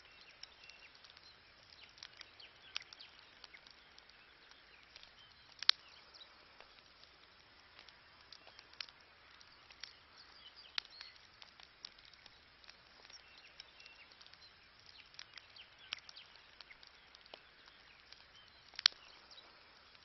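Wood campfire crackling: irregular sharp pops and snaps over a faint hiss, with two louder pops, one about six seconds in and one near the end.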